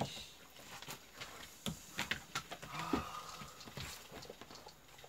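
A handful of sharp slaps and taps at irregular intervals: a hand swatting at mosquitoes on bare legs.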